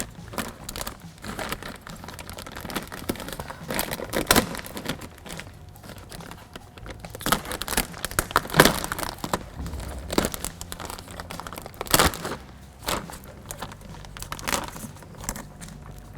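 Plastic door vapor barrier sheet crinkling as it is handled and pulled apart where it has stuck to itself, with irregular crackles and a few louder rustles.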